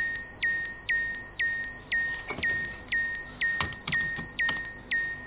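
Electronic alarm beeping about twice a second, each beep a short steady high tone: an emergency alert going off. A few sharp clicks of console keys come in over the second half.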